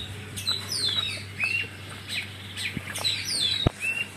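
Small birds chirping repeatedly, many quick high chirps that slide downward in pitch. There is a sharp click a little over three and a half seconds in.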